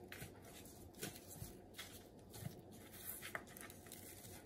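Faint, scattered rustles and soft taps of gloved hands turning and rubbing seasoned raw chicken wings on a plastic tray.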